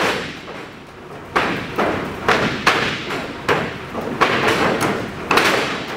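A string of thuds on a wrestling ring's canvas-covered floor, roughly two to three a second, starting a little over a second in, as a wrestler runs across the ring.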